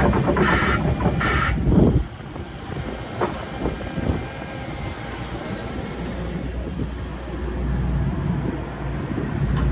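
Hitachi ZX135 crawler excavator's diesel engine running. An electronic warning beeper repeats during the first second and a half, then stops.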